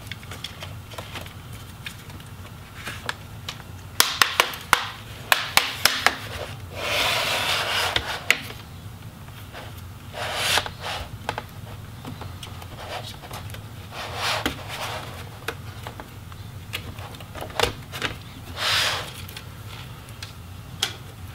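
Plastic bottom cover of an Alienware 17 R4 laptop being pried off the palm rest with a pry tool. A quick run of sharp snaps and clicks comes about four seconds in as the clips let go. Plastic scrapes and rubs several times after that.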